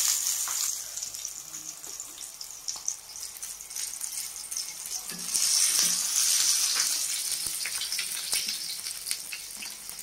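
Spiced eggplant slices shallow-frying in oil on an iron tawa: a steady sizzle with scattered crackles and pops, swelling louder about halfway through.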